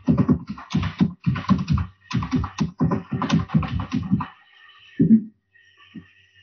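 Computer keyboard typing: a quick, uneven run of keystrokes that stops about four seconds in, followed by one heavier tap about a second later.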